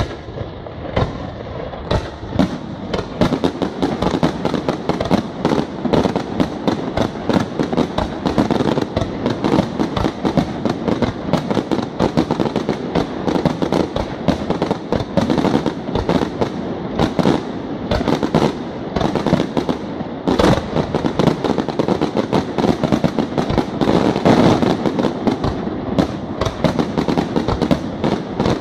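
Fireworks display: aerial shells bursting overhead in a rapid, continuous barrage of bangs and crackles.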